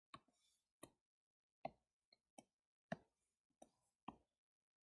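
About seven faint, uneven clicks and taps of a stylus on a touchscreen as it draws straight lines.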